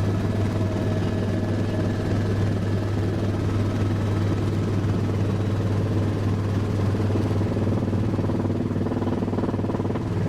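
Helicopter in flight, its engine and rotors making a steady, unchanging mechanical noise with a strong low hum.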